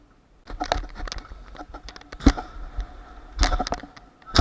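Skateboard rolling on concrete with a wheel rumble and several sharp clacks of the board and trucks. The loudest clack comes just past two seconds in, and a quick cluster of knocks follows about three and a half seconds in.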